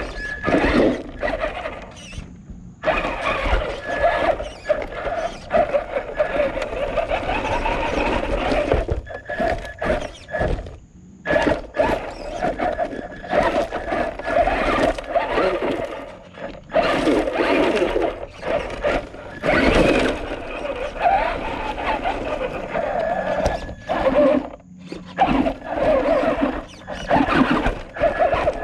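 Traxxas Rustler 4x4 RC truck's electric motor and geared drivetrain whining in repeated bursts, the pitch wavering up and down with the throttle as it climbs and descends a loose slope. Sudden knocks and clatter come as the chassis and tyres bounce over roots.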